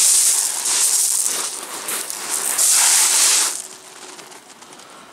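Loud rustling and scraping close to the microphone as the camera is handled against clothing, in uneven surges that are heaviest for about a second near three seconds in, then die down to a low hiss.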